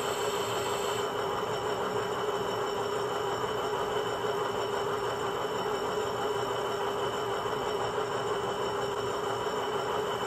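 Loksound 5 sound decoder in an HO-scale WDG4 diesel locomotive model, playing a steady diesel engine sound through the model's speaker while the locomotive runs. A faint high hiss drops away about a second in.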